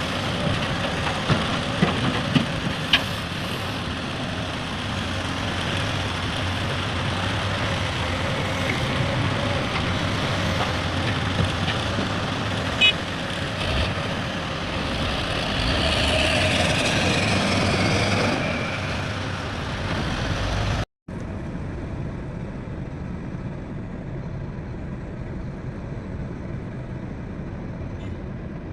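Heavy diesel machinery running: the steady drone of excavator and dump truck engines, with a few sharp knocks early on and a falling whine about two-thirds of the way through. It then cuts suddenly to a quieter, steady engine drone.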